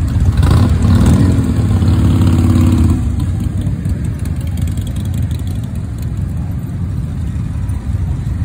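Many motorcycle engines idling together, with one engine running louder and rising in pitch for the first three seconds before the sound settles back to a steady idle.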